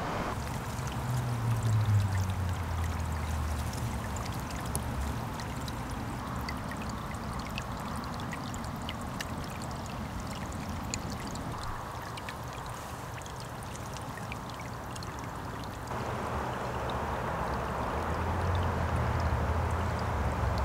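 Shallow stream trickling and splashing over a pebble bed, with many small high droplet ticks through the middle. A low rumble comes and goes in the first few seconds and again near the end.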